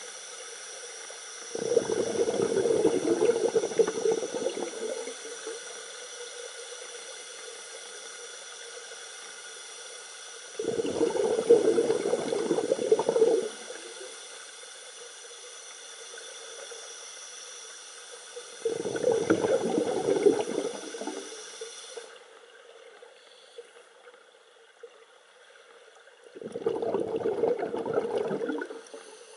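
Underwater sound of scuba divers breathing: four loud bursts of exhaust bubbles, each two to three seconds long and about eight seconds apart, over a steady hiss that drops away about two-thirds of the way through.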